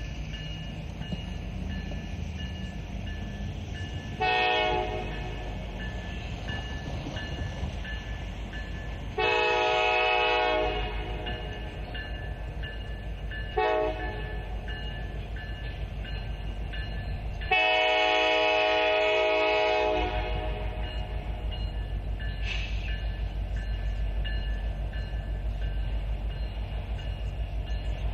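Diesel freight locomotive's multi-chime air horn sounding four blasts in the grade-crossing pattern, long, long, short, long, with the last the longest. A crossing bell rings throughout, and the locomotives and train rumble underneath, growing louder near the end as the train passes.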